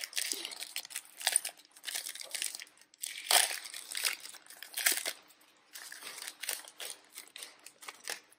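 Foil Topps Chrome card pack being torn open and its wrapper crinkled by hand: a run of irregular crackling rustles, with the loudest tears a little over three seconds in and again near five seconds.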